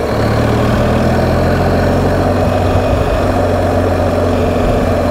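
BMW R 1250 GS Adventure's boxer-twin engine running at a steady cruising speed of about 30 mph, under a steady rush of road and wind noise.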